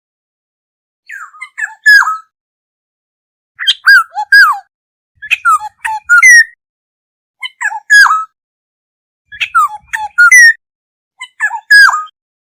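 Black-hooded oriole calling: about six short phrases of a few quick, sliding whistled notes, repeated roughly every two seconds.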